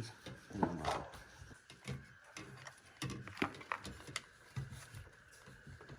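Scattered light clicks and taps of small carburetor parts being handled, at irregular intervals.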